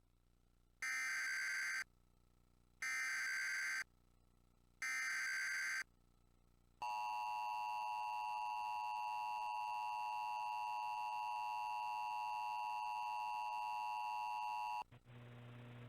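Emergency Alert System tones: three one-second bursts of SAME header data, about a second apart, then the steady EAS attention signal held for about eight seconds. It cuts off shortly before the end and a faint low hum follows.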